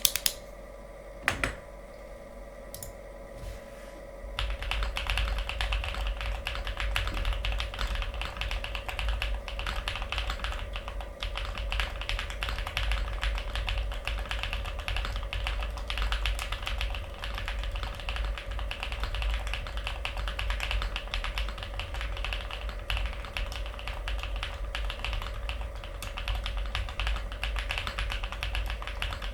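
Fast continuous typing on a Glacier 80 custom mechanical keyboard: Epsilon linear switches lubed with Krytox 205g0, mounted on a polycarbonate plate, with GMK Shoko keycaps. A few single keystrokes come first, then a steady stream of rapid key clicks starts about four seconds in.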